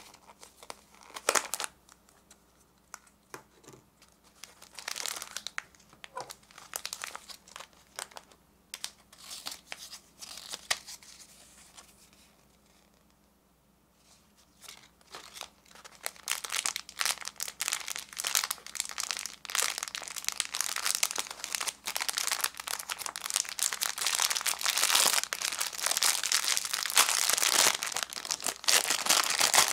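Plastic gashapon capsule twisted open with a sharp click about a second in, followed by scattered light handling of the capsule and its paper insert. About halfway through, continuous crinkling of a thin plastic wrapper begins and grows louder as a small plush toy is unwrapped.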